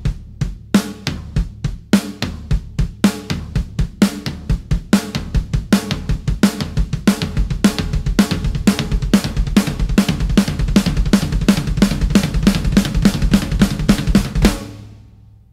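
Rock drum kit playing an intro alone: bass drum, snare, cymbals and hi-hat, starting with spaced hits and growing denser and busier. The drumming fades away about a second before the end.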